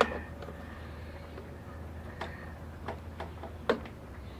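A few sparse, quiet clicks of a hand screwdriver working against metal hardware as a tight fastener is forced loose, over a steady low hum.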